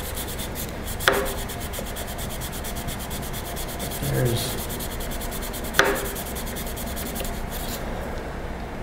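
Steel plane iron rubbed back and forth on sandpaper laid flat on a metal table: honing the iron's edge, a rapid run of scraping strokes with two sharp clicks, stopping about a second before the end.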